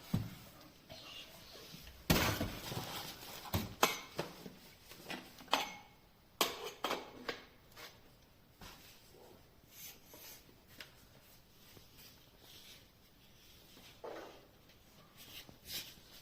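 Irregular clicks, knocks and brief rustles of hard objects being handled, loudest a couple of seconds in and again around the middle; no motor is running.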